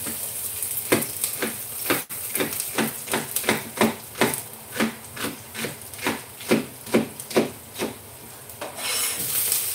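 Rhythmic scraping strokes, about two or three a second, with one sharp click about two seconds in; the strokes stop near the end.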